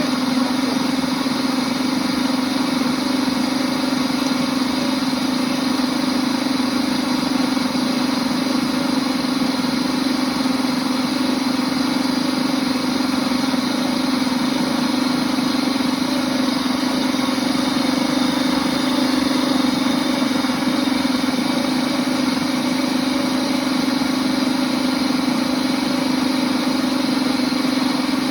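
Princess House Vida Sana blender running steadily on its soup setting, blending milk with whole chocolate tablets: a loud, even motor hum.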